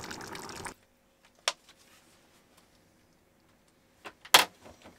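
A pot of lentil curry bubbling as it simmers, which cuts off suddenly under a second in. Then near quiet, broken by a faint click and, near the end, one sharp click.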